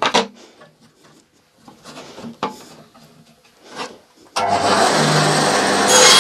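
A few knocks and rubs as a piece of wood is set down and slid on a bandsaw table, then about four seconds in a SIP 14-inch bandsaw switches on and runs steadily with a low hum. It is a first test run of a freshly fitted narrow blade.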